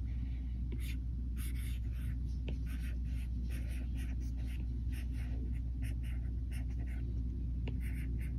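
Stylus tip scratching and tapping on a tablet's glass screen in short, irregular strokes while handwriting, over a steady low hum.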